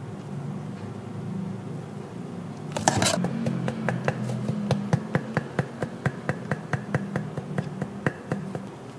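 A kitchen utensil clattering once and then clicking in a quick regular rhythm, about four to five clicks a second for some five seconds, over a low steady kitchen hum.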